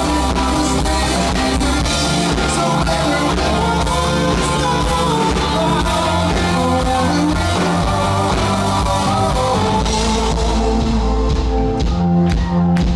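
Live rock band playing a song: keyboard, electric guitar and drums under a male lead vocal. Drum hits stand out near the end.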